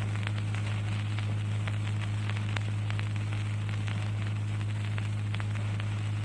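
Background noise of an old audio recording between recited verses: a steady low electrical hum with an even hiss and scattered crackling clicks.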